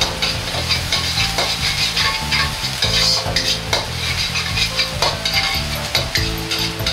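Minced garlic, ginger and spring onion sizzling in hot oil in an iron wok, stirred continuously with a metal wok ladle that scrapes and clicks against the pan again and again. This is the aromatics being fried in the oil at the start of the sauce.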